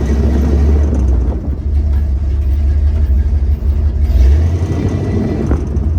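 Pickup truck driving, a steady low rumble of engine and road noise. Any squeak from the front end is faint beneath it, and greasing the suspension joints has not cured it.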